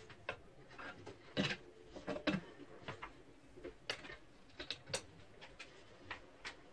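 Irregular light clicks and knocks, about a dozen spread unevenly, as of tools and small parts being handled during a workshop build.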